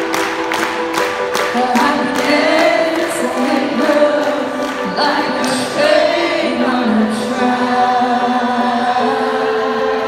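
A live band playing in an arena with a woman singing lead, recorded on a phone from the stands. Sharp beats come about three a second in the first couple of seconds, then fade under the singing.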